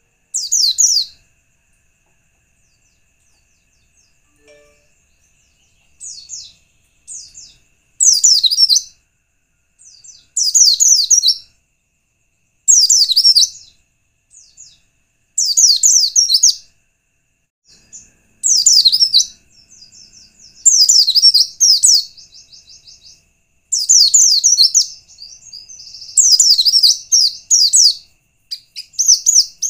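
White-eye (pleci) singing: short bursts of rapid, high twittering notes repeated every two to three seconds, with a longer buzzing trill mixed in near the end.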